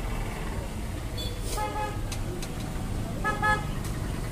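Vehicle horns tooting in street traffic: a short toot about a second and a half in and a doubled toot near the end, over a steady low rumble.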